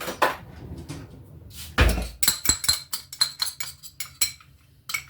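A spoon clinking against a bowl in a quick series of ringing taps as custard powder is spooned in. A dull thud comes just before the taps, about two seconds in.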